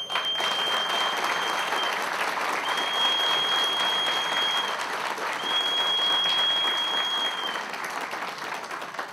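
A large indoor audience applauding steadily. A high, steady whistle cuts through it three times, each about two seconds long, and the applause dies away near the end.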